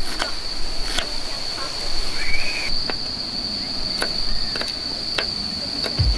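An insect trilling on one steady, unbroken high note, over scattered sharp clicks or knocks.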